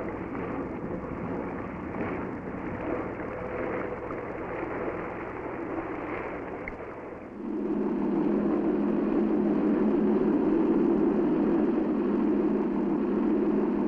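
River patrol boat running at speed, its engine noise mixed with rushing water. About seven seconds in, a louder, steady engine drone takes over.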